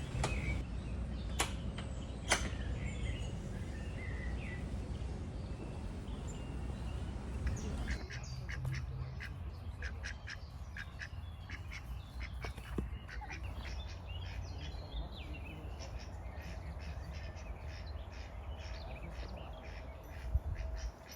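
Domestic ducks quacking in a run of short calls, over a steady low rumble. Songbirds chirp in the first few seconds.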